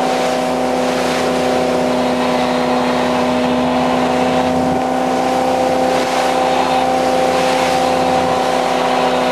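Motor cruiser's engines running steadily at speed: a constant droning hum over the rush of wind and water as the hulls plane through ocean waves.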